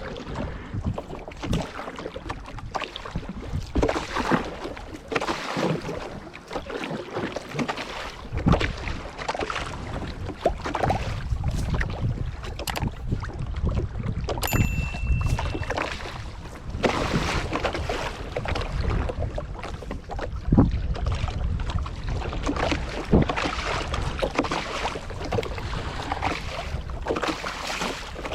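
Wind buffeting the microphone and water moving around a small wooden canoe, with a few sharp knocks.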